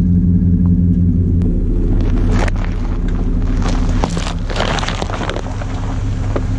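A pickup truck's engine running steadily as its tyres roll slowly over shaken-up plastic soda bottles on gravel, with several sharp pops and cracks as the bottles burst under the wheels.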